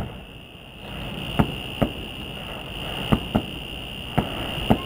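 Distant fireworks shells bursting: about six sharp bangs at uneven intervals, over a steady high-pitched whine.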